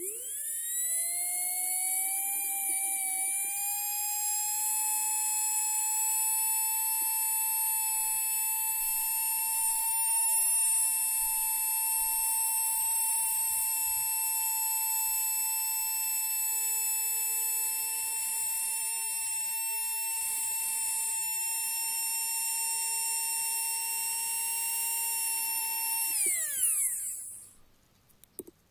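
Modded RM2 Nerf flywheel motor, fitted with carbon brushes, run on a DC transformer set to about 17 V. It spins up at once to a high-pitched whine that rises over the first few seconds and then holds steady. Near the end the power is cut and it winds down quickly to a stop.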